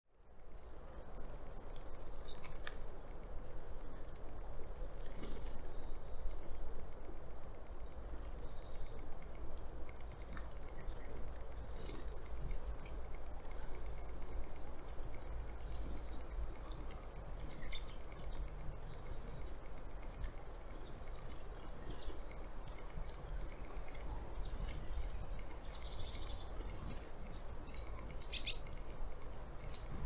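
Small birds giving many short, very high, thin chirps, scattered irregularly and a little louder near the end, over a steady low rumble.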